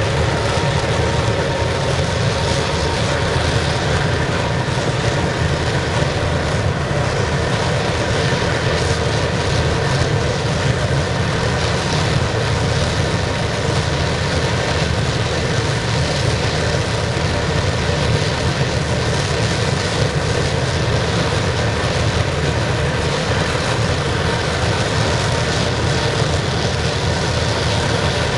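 Waste-oil burner of a scrap-melting furnace firing steadily: a loud, even roar with a few faint steady tones in it, unchanging throughout.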